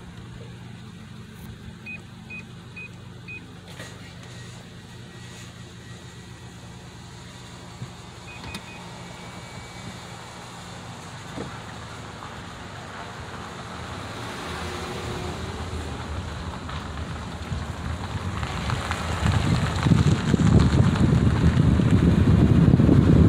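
Car running at low speed, a steady low hum of engine and road noise, with a few short high beeps twice early on. From about the middle, rushing wind noise builds and becomes loud near the end.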